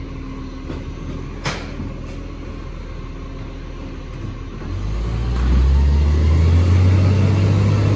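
Side-loading garbage truck's engine running as its arm lifts a wheelie bin, with a sharp clank about a second and a half in. About five seconds in, a deep engine rumble swells up and stays loud.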